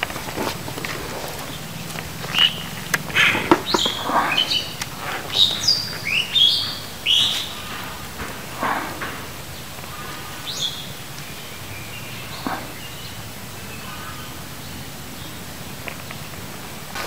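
Birds chirping: a cluster of short, high, rising and falling calls through the first half, then quieter with a single call a little past the middle.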